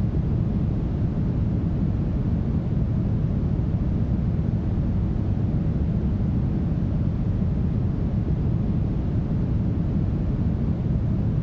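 Steady brown noise, heavily smoothed: an even, deep rush of noise, strongest in the bass and thinning toward the highs, unchanging throughout.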